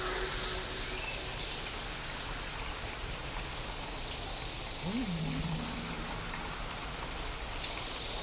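Steady rain falling, with eerie sound-designed tones over it. A held tone fades out about a second and a half in, and about five seconds in a low tone swoops up, drops back and holds for about a second and a half.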